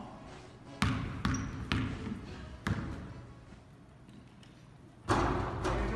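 A basketball bounced three times on a hardwood gym floor, about a second apart, each bounce echoing in the hall; near the end comes a louder clatter as the shot comes down at the hoop.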